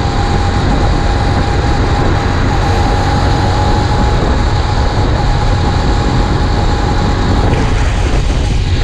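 Small four-stroke engine of a motorized fat-tire beach cruiser running steadily while riding, with heavy wind rumble on the microphone. The engine is new and being broken in.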